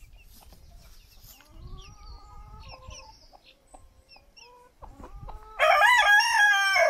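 Chickens clucking softly, then a rooster crows loudly near the end in one long call that wavers in pitch.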